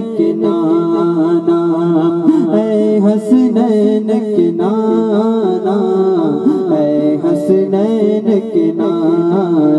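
Man singing a naat unaccompanied into a microphone over a sound system, drawing out long melismatic notes between the lines of the refrain.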